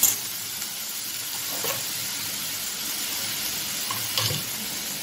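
Chopped cabbage, capsicum and carrot sizzling steadily in oil in an aluminium kadai, with two faint knocks partway through.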